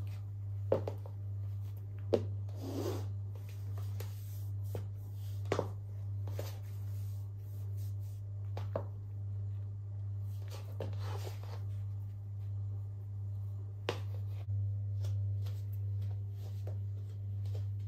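A few sharp taps of high-heeled sandals on a laminate floor, with soft rustles in between, over a steady low hum.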